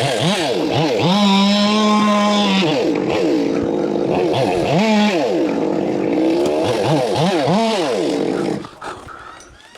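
Chainsaw engine revving up and down again and again, held at high speed for about a second and a half a second in, then cutting out near the end.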